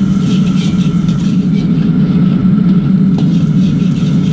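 Commercial gas wok stove's burner running with a steady low noise, while a metal ladle stirs minced garlic frying in oil in the wok, scraping the pan now and then.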